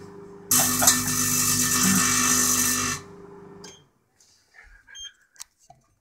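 Microwave oven running with a steady electrical hum under the loud crackling buzz of plasma arcing inside it; the sound drops out for a moment at the start, then cuts off suddenly about three seconds in, leaving a few faint clicks.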